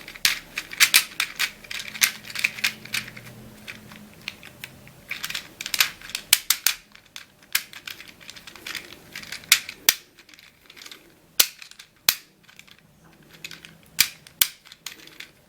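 Plastic tiles of a Leesho tile-sliding puzzle clicking as its rows are turned to scramble it: a quick run of clicks for the first several seconds, then sparser single sharp clicks as each row snaps into place.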